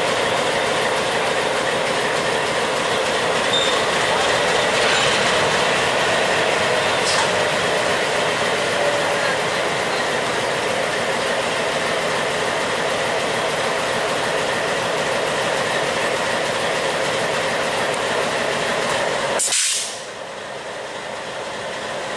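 Bangladesh Railway diesel locomotive moving slowly along the track, its engine running with a steady drone. Near the end a brief sharp burst of noise, after which the sound drops quieter.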